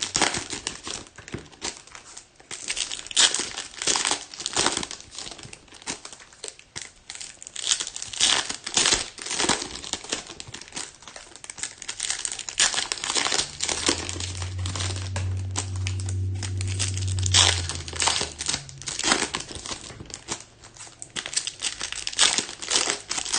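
Plastic wrapping of sealed baseball card packs crinkling and tearing as they are opened by hand, in many irregular rustles. A steady low hum sounds for about three and a half seconds past the middle.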